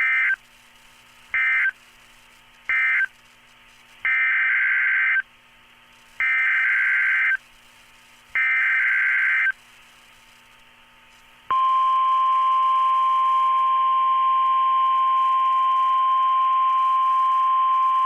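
NOAA Weather Radio emergency alert signal. First come three short SAME digital data bursts, then three longer ones of about a second each with short gaps between them. About eleven and a half seconds in, the steady single-pitch warning alarm tone starts and holds.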